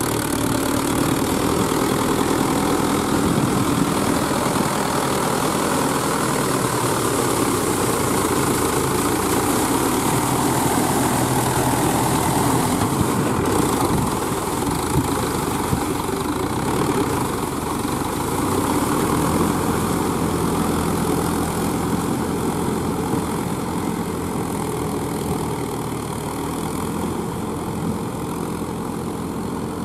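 Mahindra 575 Yuvo tractor's four-cylinder diesel engine running steadily under load while pulling a rotavator through flooded paddy mud, the blades churning the wet soil.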